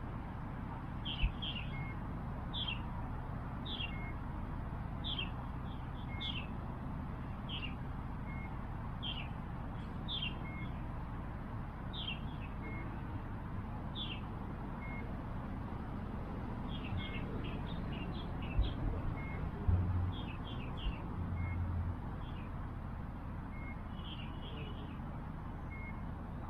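A bird calling over and over: short falling chirps about every second and a half, each followed by a short flat note, over a steady low rumble. A few dull low thumps come about two-thirds of the way through.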